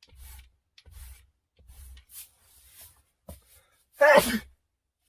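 A person sneezes once, loudly and briefly, about four seconds in, after a few short, soft breathy sounds.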